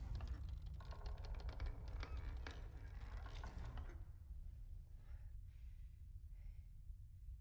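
A wooden chest lid being lifted, with a dense rattle of clicks and knocks, over a steady low rumbling drone. About four seconds in the clicking stops and a woman's faint breaths are heard.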